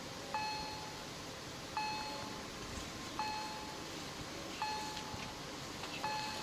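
Auer EHL-S10 electronic crossing bells sounding a single ringing ding about every second and a half, five times: the warning that the level crossing is closing for an approaching train.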